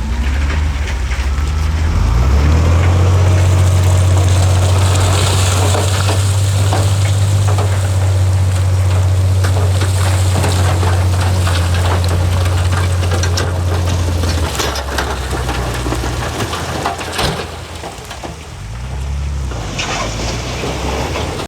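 Heavy diesel engine of earthmoving machinery working under load with a steady low drone, which drops away a little over halfway through. Scattered clanks and knocks follow near the end.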